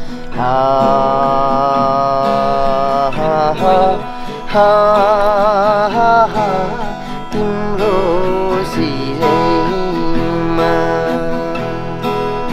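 Acoustic guitar strummed while a voice sings a slow melody, with long held notes that waver in pitch, most clearly about five seconds in and again about eight seconds in.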